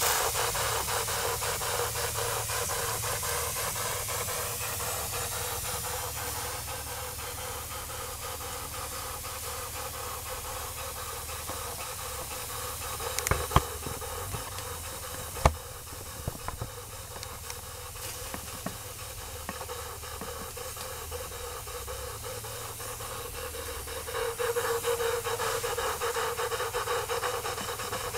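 Jensen "Ram" live steam engine with a No. 20 cylinder running under steam: a steady hiss of steam with a fast, even beat from the engine, swelling louder near the end. Two sharp knocks come about halfway through.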